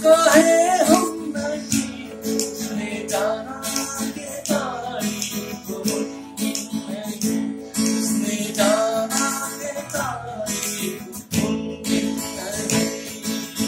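Strummed acoustic guitar music, with a voice singing long wordless melodic phrases over it every few seconds.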